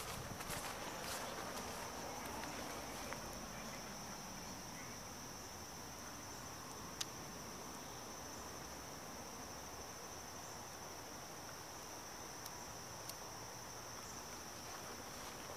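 Steady, high-pitched chorus of insects in the trees, one unbroken shrill trill, with a single sharp click about halfway through.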